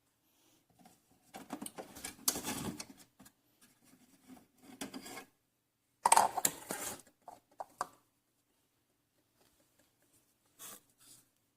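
Handling noises in several irregular bursts: rubbing and scraping with a few sharp clicks, the loudest about six seconds in.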